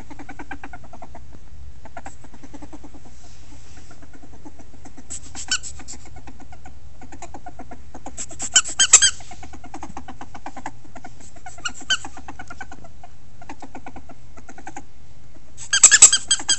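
Ferret squeaking in short high-pitched bursts several times, loudest about eight seconds in and again near the end, over a steady low hum.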